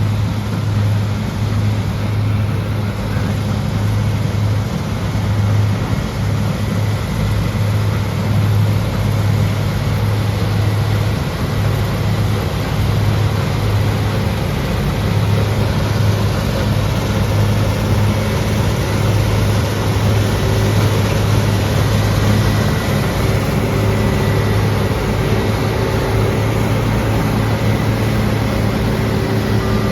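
Heavy farm-machinery diesel engine running steadily under load, with a strong low hum over the noise of the working machine.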